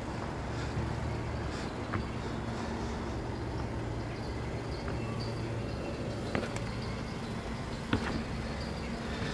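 Steady low hum and rumble of city traffic, with a few sharp taps, the loudest about eight seconds in.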